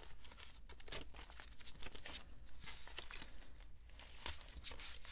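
Plastic binder sleeves rustling and crinkling as photocards are handled and slid into the pockets, a quick run of short rustles.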